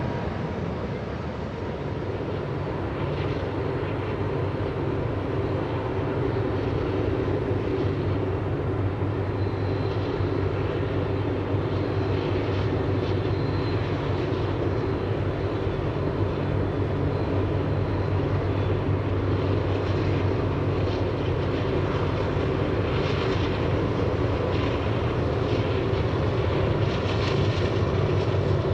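Diesel-electric locomotives of a freight train running under power: a steady low engine drone that grows a little louder near the end, over the even rush of river rapids.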